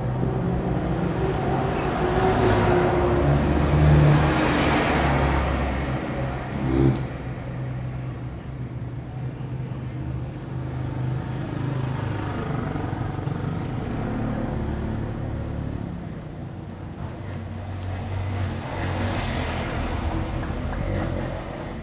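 Street traffic: motor vehicle engines running steadily, with louder swells as vehicles pass about two to five seconds in and again near the end, and one short knock about seven seconds in.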